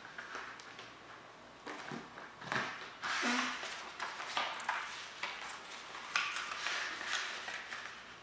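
Sheets of origami paper being handled and moved over a tabletop: irregular rustling and crinkling, busiest from about two seconds in.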